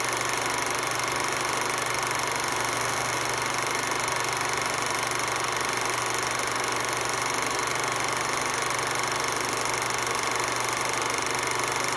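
Film projector running with a steady mechanical whir and hiss, typical of a silent cine film transferred off a projector.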